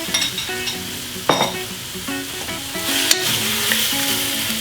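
Sliced chicken and garlic sizzling in a wok with a little added water, and a spatula stirring and knocking against the wok once. The sizzle swells about three seconds in.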